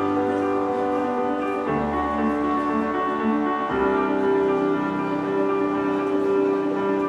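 Slow instrumental background music: held chords that shift to a new chord every two seconds or so, with no clear beat.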